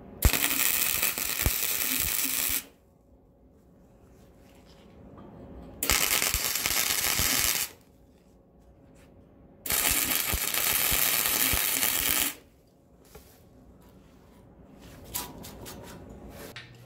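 Wire-feed welder's arc crackling in three welding runs of two to three seconds each, starting and stopping abruptly, as a steel pipe leg is welded to a steel tank. A few light clicks follow near the end.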